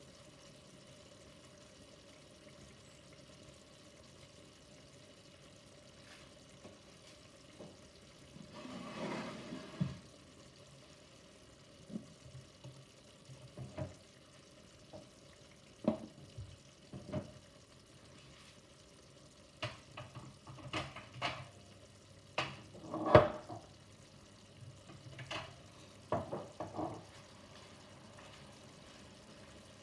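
Scattered knocks and clicks of items being handled and set down in a kitchen, the loudest about two-thirds of the way through, with a brief rushing noise about nine seconds in.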